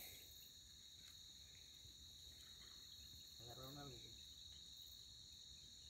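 Faint, steady, high-pitched chorus of night insects. A distant voice speaks briefly in the middle.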